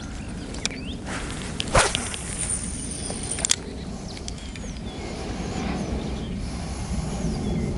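Cast with a spinning rod and reel: a sharp click, then the line runs out with a thin high whine for about a second and a half, ending in another click.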